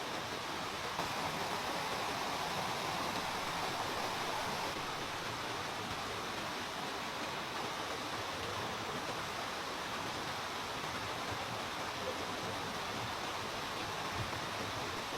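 Steady, even rushing noise that holds without change, with no distinct sounds in it.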